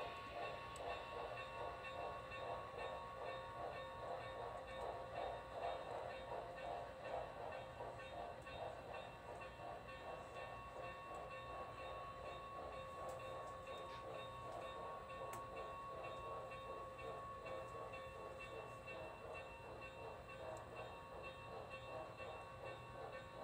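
Model railroad passenger train running on the layout: a faint steady running sound with a fast rolling flutter and a steady high tone that weakens about halfway through as the train moves off.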